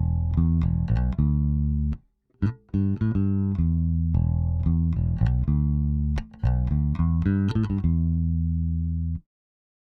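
Fender Jazz Bass electric bass played through an EBS MultiComp compressor pedal: a riff of plucked notes, with a short break about two seconds in, ending shortly before the end.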